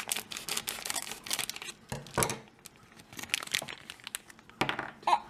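Plastic blind-bag packaging crinkling and tearing as it is cut and pulled open, in quick crackles during the first two seconds, one louder rip a little after two seconds, and a few more crackles near the end.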